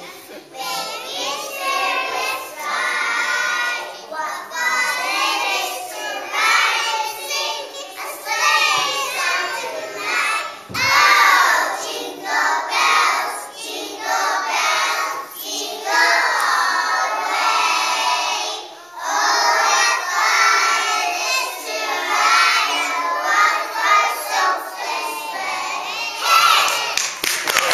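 A group of young children singing a song together, with applause starting near the end.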